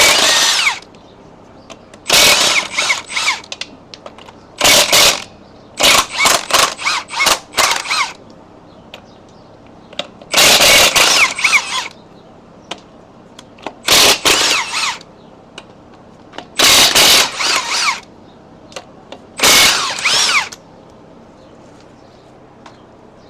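Impact wrench hammering on wheel lug nuts in a string of bursts: some about a second long, some quick short pulls on the trigger, with pauses between them.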